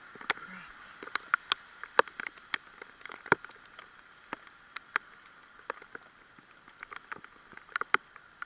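Raindrops pattering close to the microphone: irregular sharp ticks and taps, some in quick clusters, over a faint steady hiss.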